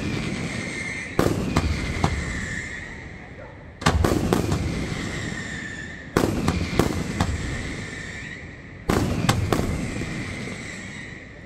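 Aerial firework shells bursting overhead: loud bangs in pairs, about every two and a half seconds, each pair followed by a long echoing rumble that fades away.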